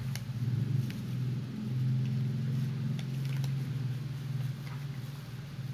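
A low steady hum with a few light clicks of a metal spoon against a bowl as tuna is stirred, and a faint rustle of a plastic sachet.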